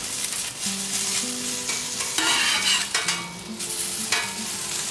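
Pot stickers and hot dogs sizzling on a hot flat-top griddle as the dumplings are turned with tongs. The sizzle swells twice near the middle.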